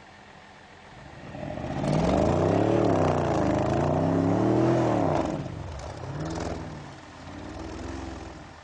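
An SUV's engine revving hard, its pitch swinging up and down for about three seconds, then two shorter, lighter revs.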